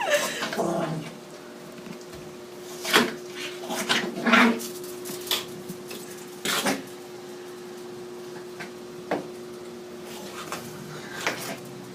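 Yorkshire terrier gnawing a large porterhouse steak bone: scattered short knocks and clicks as the bone is chewed and shifted.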